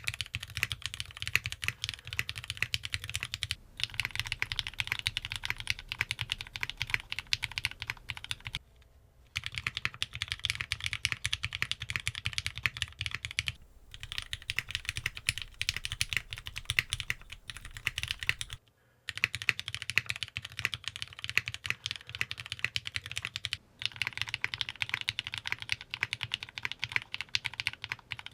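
Fast, steady typing on a mechanical keyboard with lubed and filmed Cherry MX Black Clear Top linear switches in an aluminium plate, under GMK keycaps. It comes in about six takes split by brief pauses, each recorded through a different microphone, so the tone and background hum change from take to take.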